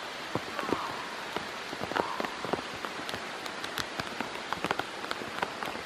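Steady rain falling, with many separate drops landing close by as sharp ticks.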